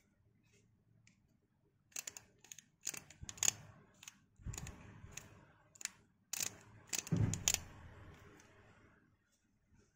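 Sharp clicks and knocks from a Nikkor-Q Auto 135mm f/2.8 camera lens being handled and turned close to the microphone, with low rubbing handling noise between them. About nine clicks, most of them in the middle of the stretch.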